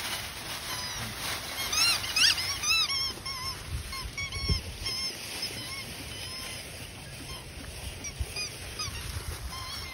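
Cairn terrier puppies giving short, high-pitched yips, a quick cluster about two seconds in and a few more scattered after, over the rustle of dry leaves and footsteps on grass.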